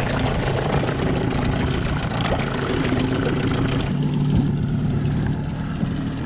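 Boat engine running steadily under way, a low hum under a rushing hiss of wind and water; about four seconds in the hiss drops away while the engine hum carries on.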